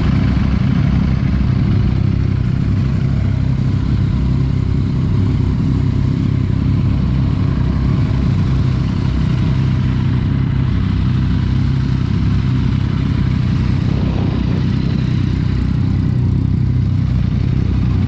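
Ducati Streetfighter V4S's 1103 cc V4 engine idling steadily.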